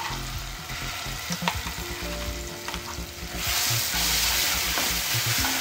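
Sliced garlic and red chilli paste sizzling in hot oil in a nonstick pan, with a wooden spatula scraping and stirring. The sizzle turns into a louder, steady hiss about three and a half seconds in.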